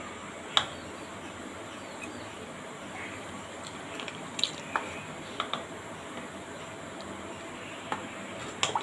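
Metal ladle stirring chicken curry gravy in a pressure cooker pot: several sharp clinks of the ladle against the pot, the loudest about half a second in and a quick pair near the end, with soft sloshing as gravy is scooped up and poured back.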